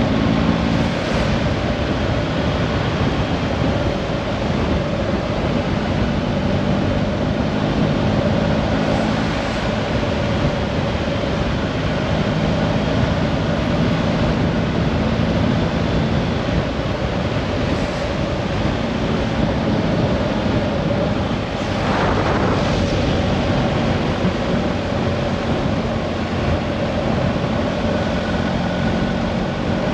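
Steady drone of a vehicle in motion: a constant engine hum under an even rushing noise, with only small changes in level.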